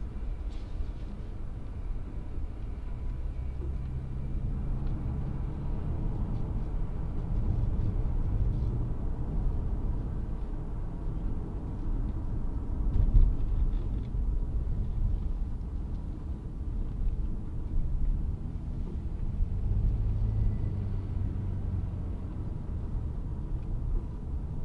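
Car driving, heard from inside the cabin: a steady low rumble of engine and tyres on the road, with the engine note rising and falling. There is a single thump about halfway through.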